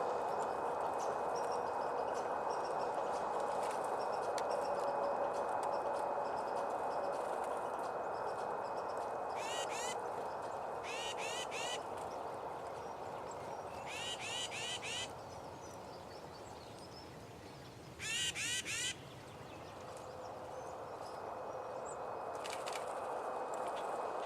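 A bird calls in four short bouts of rapid, repeated high notes, each bout lasting under a second, over a steady rushing background noise.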